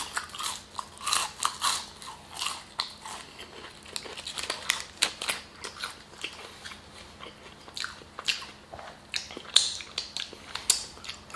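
Close-miked chewing and biting of fried fast food: irregular wet crunches and mouth clicks, with no steady rhythm.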